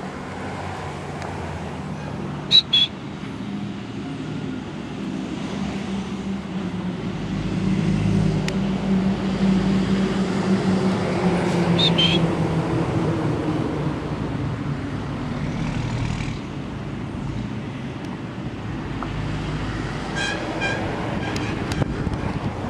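Road traffic: vehicle engines running and passing, swelling to their loudest around the middle. Brief high chirps cut through about two and a half seconds in and again around twelve seconds, with a quick run of short high notes near the end.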